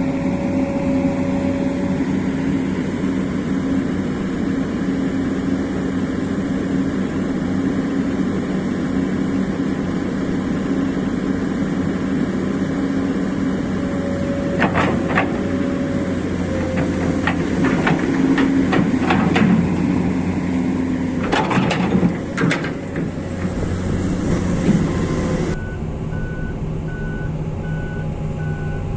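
Heavy excavator diesel engine running steadily, with a series of sharp metallic knocks partway through. Near the end a fast repeating warning beep starts.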